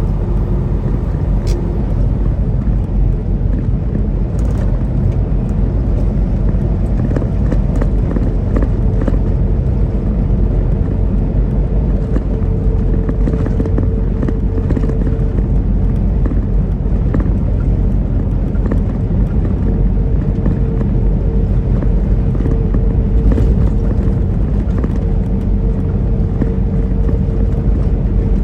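Steady drone of a semi truck heard from inside the cab at highway speed: diesel engine and road noise, with a faint steady whine.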